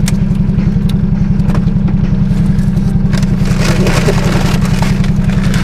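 Nissan 300ZX's V6 engine running steadily with an even low pulse and no change in revs. A few light clicks and a brief rustle come from about three seconds in.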